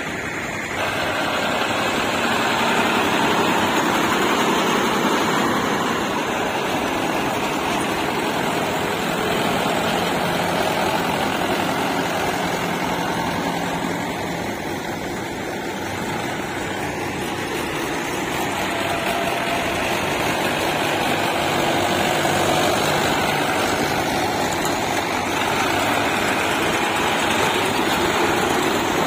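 Diesel tractor engine running steadily, with a low engine hum over a dense mechanical noise.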